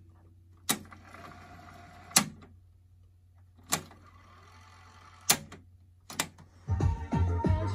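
Mechanical piano-key transport buttons of a Sony TC-K5 cassette deck clunking as they are pressed: five presses about a second and a half apart, with a faint whir of the tape spooling between some of them. Tape playback of music starts again near the end.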